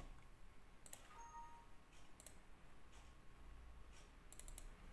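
Faint computer mouse clicks over a low steady hum: one click about a second in, another a little after two seconds, and a quick run of clicks near the end.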